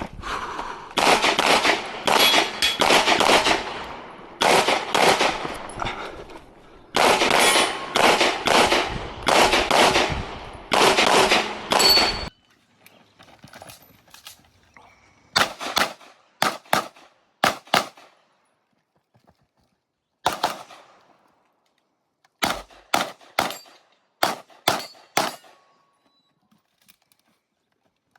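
Competition handgun fired rapidly in fast strings of shots, with some metallic ringing among them. About twelve seconds in the sound cuts abruptly to separate single shots and quick pairs with quiet gaps between.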